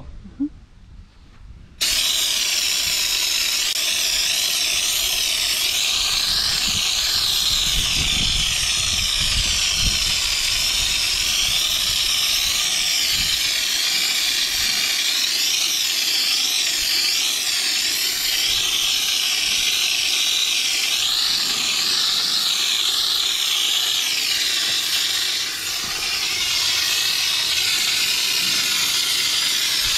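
Air-powered undercoating spray gun hissing steadily as it sprays a thick homemade latex-paint and microballoon coating. The hiss starts abruptly about two seconds in and eases briefly near the end.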